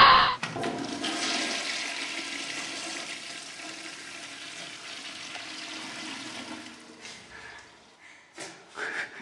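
Rushing water, loudest at first and fading away over about seven seconds, then a few faint brief sounds near the end.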